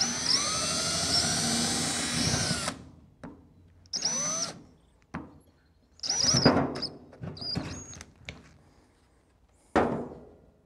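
Cordless drill drilling out a plastic piece in a Crown Victoria wiper motor: one long run of about three seconds, its motor pitch sagging and recovering under load, then several short bursts of the trigger. A sharp knock near the end.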